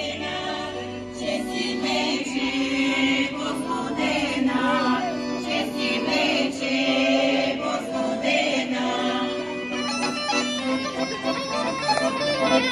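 Bulgarian women's folk choir singing in harmony over a steady held drone, with accordion accompaniment.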